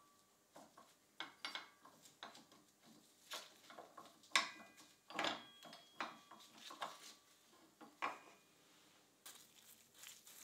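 Rusty steel pipe vise parts being handled and shifted by hand: irregular metal clicks and knocks, some with a short ring.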